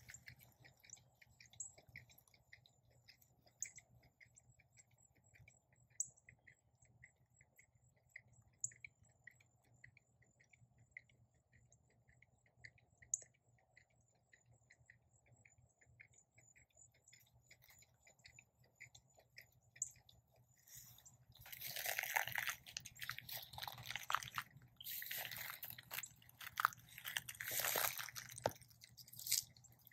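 Faint insects chirping steadily, about two chirps a second over a high continuous trill. About two-thirds of the way in, loud irregular crunching and rustling of footsteps on dry pine straw mulch takes over.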